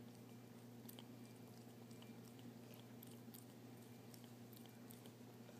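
Faint, irregular small clicks and smacks of a cat chewing and biting a piece of pastry held in fingers, over a steady low hum.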